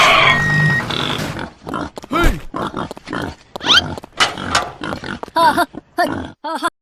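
Pigs grunting and squealing in a rapid string of short calls, after a denser mixed sound fades out in the first second or so.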